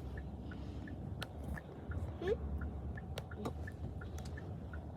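Low, steady rumble inside a car, with scattered faint clicks and a brief rising squeak about two seconds in.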